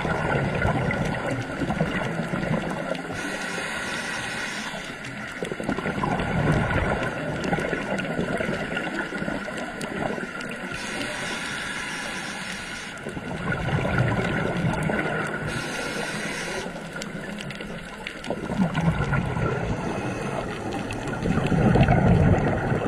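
Scuba diver breathing through a regulator underwater. A hiss comes on each inhale, and a gurgling rush of exhaled bubbles follows every few seconds.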